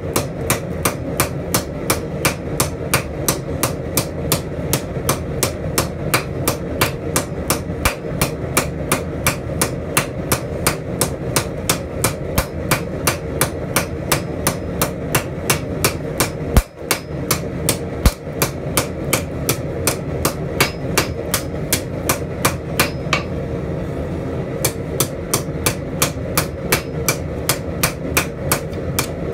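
Hand hammer striking a red-hot steel spatula handle on an anvil, a steady run of about three sharp blows a second, creasing the handle over the anvil's shoulder. The rhythm breaks briefly about halfway through, with two heavier thuds.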